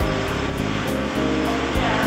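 Background music: sustained instrumental notes that shift in pitch every fraction of a second.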